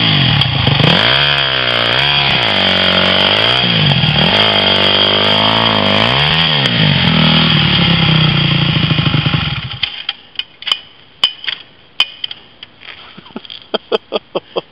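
Dirt bike engine running and being revved up and down several times as the bike rides off, then cutting out abruptly about ten seconds in. Scattered small clicks and knocks follow.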